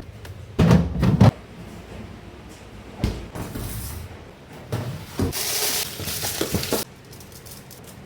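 Kitchen handling sounds: a cluster of knocks and bumps of things being moved and set down about a second in, a thump at three seconds, then a spell of rushing, hissing noise with more knocks near the end.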